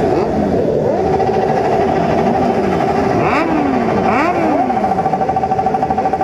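A crowd of stopped motorcycles revving their engines together, many pitches rising and falling over and over, while one engine is held at a steady high pitch. That held note stutters rapidly near the end.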